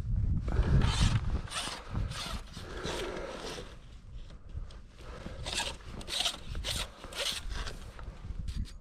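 Rasping, scraping handling noises, about eight short strokes, with wind buffeting the microphone at the start.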